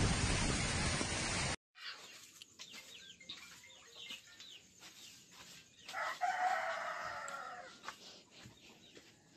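Storm wind and rain blowing hard into the microphone, cut off abruptly after about a second and a half. A rooster then crows once, for about two seconds, over faint small chirps.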